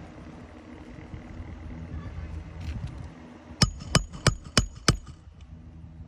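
Hammer driving a roofing nail through a 3-tab asphalt shingle: five quick, evenly spaced strikes with a short metallic ring, about two-thirds of the way in. A steady low hum runs underneath.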